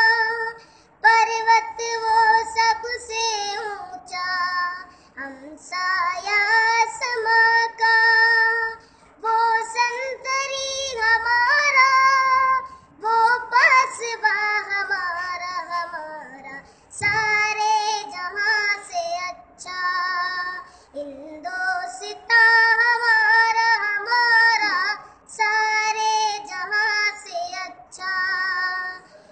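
A young boy singing a song solo, in long held notes and phrases broken by short pauses for breath.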